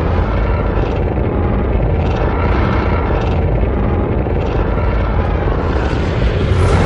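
Homemade sound effect of Godzilla's atomic breath: a loud, dense rumbling rush that pulses steadily and grows brighter and hissier near the end.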